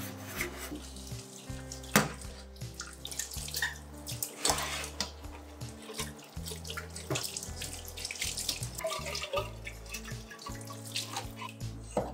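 Kitchen tap running into a stainless steel sink while a stainless steel kettle is scrubbed and rinsed, with splashing and scattered knocks of metal against the sink. The sharpest knock comes about two seconds in.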